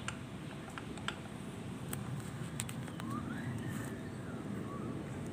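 A few faint, light metal clicks as the pad pin and its clip are worked out of a Yamaha LC135's rear brake caliper, over a steady low background hum.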